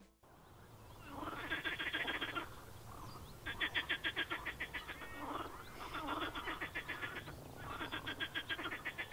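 Frogs croaking: four calls, each a fast rattling run of pulses lasting about a second, with short pauses between.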